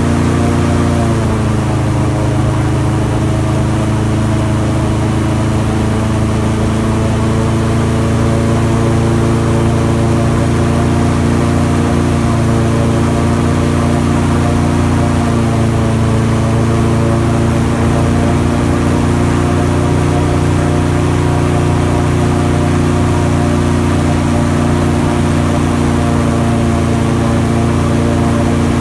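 Airboat's engine and large air propeller running loud and steady, a droning hum whose pitch drops slightly about a second in.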